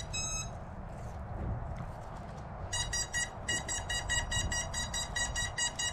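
Electronic beeper on an FPV quad or its radio sounding after a crash: a couple of short high beeps, then from about three seconds in a rapid, even series of high pitched beeps, about five a second, over a low rumble of outdoor noise.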